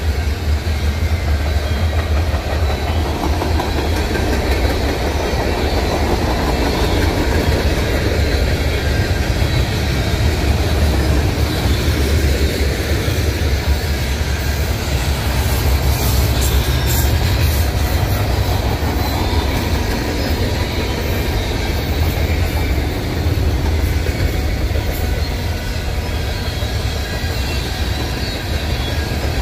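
Cars of a CN mixed freight train rolling past at speed: a steady rumble of steel wheels on the rails.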